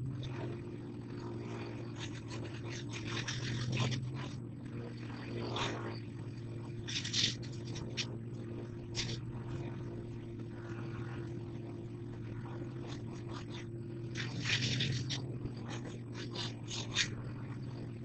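A steady low mechanical hum, with scattered brief scraping and rustling noises over it.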